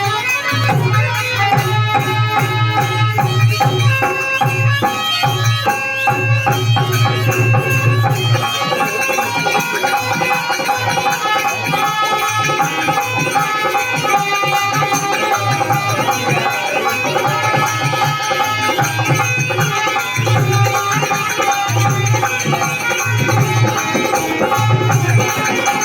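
Indian folk music with a hand drum keeping a steady rhythmic beat under a melody of several instruments, playing throughout.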